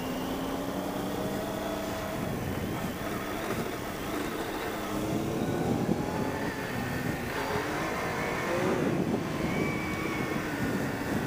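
Triumph Tiger 800 XCx's three-cylinder engine accelerating through the gears on a dirt road: the engine note rises, drops at a shift, and rises again. Wind and tyre noise grow as speed builds.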